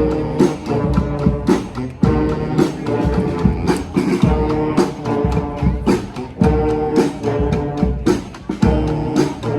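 Brass street band playing live: horns hold a repeating riff over drums hitting about twice a second.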